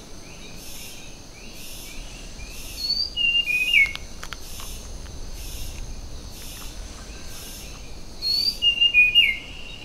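Rainforest ambience: an insect pulsing about once a second over a steady high insect whine. A bird gives a short phrase of whistled, slurred notes about three seconds in and again near the end.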